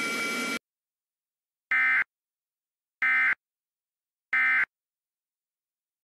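Emergency Alert System End-of-Message signal: three identical short bursts of SAME digital data warble near 2 kHz (the 'NNNN' end-of-message header), a little over a second apart, closing the alert. Before them a steady hiss with faint tones cuts off about half a second in.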